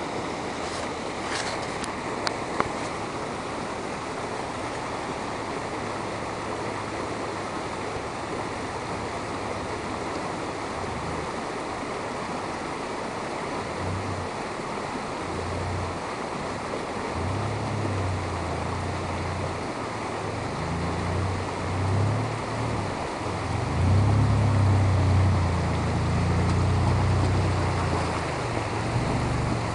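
Shallow stream rushing over stones, with an SUV wading up the streambed: its engine and the splash grow louder from about halfway through and are loudest near the end as it comes close. A couple of sharp clicks about two seconds in.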